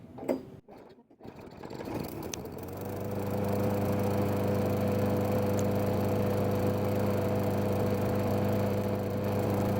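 Tecumseh engine on a Craftsman push mower pulled over on the starter cord, catching a second or so later and picking up speed, then running at a steady even speed. The engine runs again now that its sheared flywheel key has been replaced.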